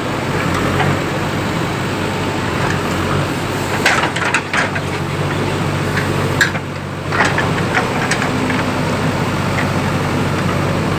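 Heavy diesel engine running steadily at idle, with a few short sharp knocks about four seconds in and again around six to seven seconds in.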